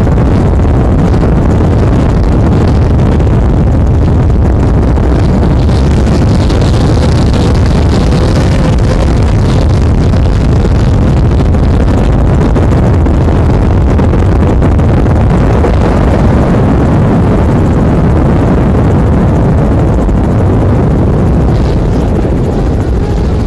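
Loud, steady engine drone mixed with wind noise, without clear revving or gear changes, easing slightly near the end.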